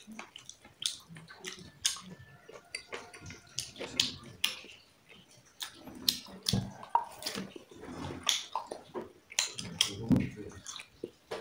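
Wet chewing and smacking of someone eating close to the microphone, with many irregular small clicks.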